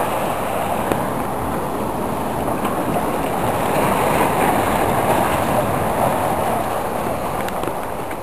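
Sea surf washing in and around the rocks of a beach groyne, a steady rush of water.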